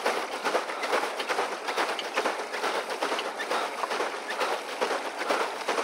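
Pedal boat's paddle wheel churning the water: a continuous rapid splashing clatter.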